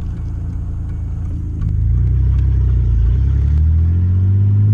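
Ford Ranger pickup's engine running through open headers as the truck accelerates: the exhaust note gets louder about a second and a half in, and its pitch climbs through the second half.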